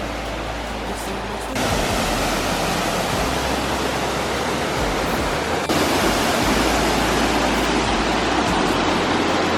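Waterfall: a steady rush of falling water, jumping abruptly louder twice, about one and a half seconds in and again near six seconds.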